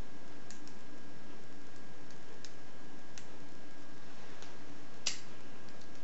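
Faint metallic clicks of a lock pick and tension wrench working the pin-tumbler keyway of a Master No. 3 padlock as the pins are set one by one. About five seconds in comes a single sharper click as the lock opens.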